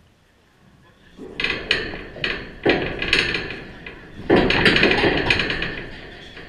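Series of sharp metallic knocks and rattles from the chain-link backstop fence the camera sits against: several single knocks starting about a second in, then a louder, denser run of rattling about four seconds in that fades away.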